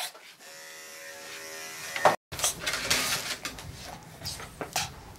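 Electric dog grooming clippers running with a steady hum, stopping suddenly about two seconds in. After that come irregular rustling and handling noises.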